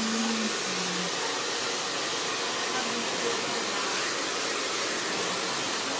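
Handheld hair dryer running steadily: a constant, even rushing hiss.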